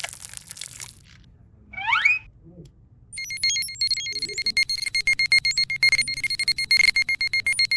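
A short rising whistle-like glide, then a rapid, steady, high-pitched electronic beeping alarm that starts about three seconds in and keeps going.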